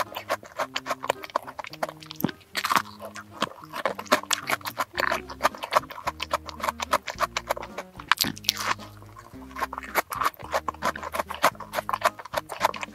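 Close-miked chewing of a pistachio macaron: many quick, crisp crackles and wet mouth clicks. Background music with low held notes plays underneath.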